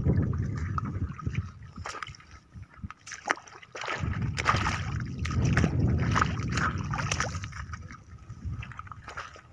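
Shallow water sloshing and gurgling around steps and hands on a sandy tidal flat, with scattered clicks and scrapes of shells and sand as clams are picked up. A low rumble swells near the start and again in the middle.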